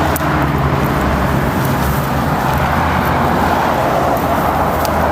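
An engine running steadily: a constant low hum under a broad rush of noise.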